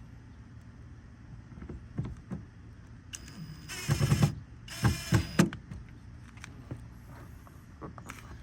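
A car's electric window motor whirring in two short runs, about three and four and a half seconds in, with heavy thumps of the door panel being knocked into its clips around them and light clicks and knocks elsewhere.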